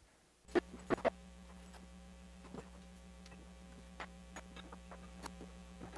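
Light metallic clicks and taps as copper soft jaws are handled and set against a bench vise's jaws: three close knocks about half a second in, then scattered single ticks, over a steady low hum that starts at the same moment.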